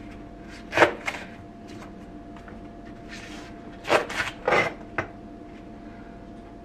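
Kitchen things being handled: a sharp knock about a second in, then a cluster of knocks and clatters between about four and five seconds in, over a steady hum.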